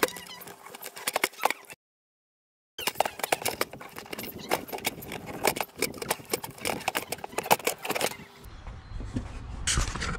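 Plastic air filter housing cover being worked loose and lifted by gloved hands: a run of irregular clicks, rattles and scrapes, cut off for about a second near the two-second mark.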